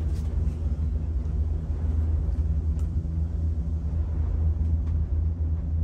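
Steady low rumble inside a moving cableway gondola cabin as it travels along the cable.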